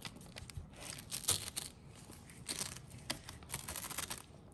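VacuVin plastic pineapple slicer being pushed and twisted down into a pineapple, its blade rasping and crunching through the fruit's flesh in about four irregular bursts of scraping.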